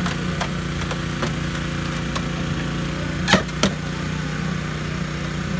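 Small gasoline engine of a portable hydraulic rescue-tool power unit running steadily. A little past halfway come two sharp cracks about a third of a second apart, with fainter clicks earlier.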